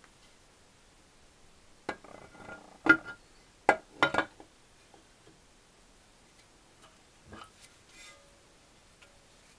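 Cast aluminium engine side cover clinking and knocking against the motorcycle crankcase as it is handled and set over the open gear case: a cluster of sharp metal knocks between about two and four seconds in, then a couple of lighter taps near the end.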